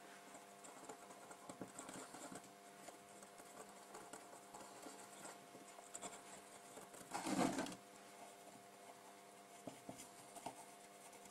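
Faint scrubbing and scratching of an acetone-soaked cotton bud on a circuit board, cleaning off flux, over a steady faint hum. There is one brief, louder rustle about seven seconds in.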